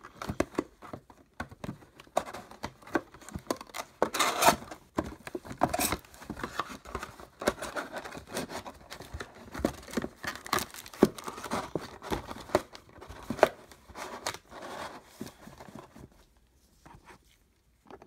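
Cardboard trading-card hobby box being opened and its foil-wrapped card packs taken out and handled: repeated tearing, crinkling and sharp clicks, dying down near the end.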